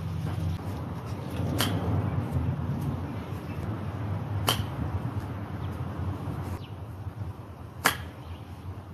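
Three crisp clicks of a 60-degree wedge striking golf balls off grass, about three seconds apart, over a steady low background hum.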